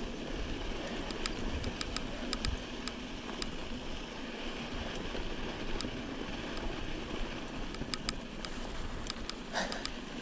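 Mountain bike rolling down a dry dirt trail, heard from a handlebar-mounted GoPro: a steady rush of wind and tyre noise, broken by scattered sharp clicks of something tapping against the camera.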